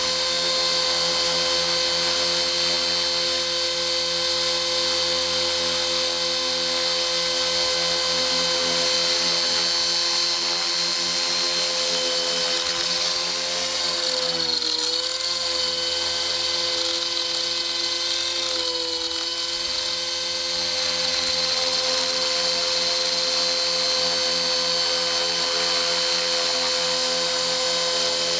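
VCTRC 450-size electric RC helicopter flying: a steady whine from its 3500Kv brushless motor and helical main gear over the rotor hum. The pitch sags briefly and recovers twice around the middle, as the head speed dips under load.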